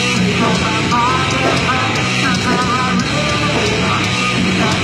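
Heavy metal band playing loud: distorted electric guitars over drums and crashing cymbals.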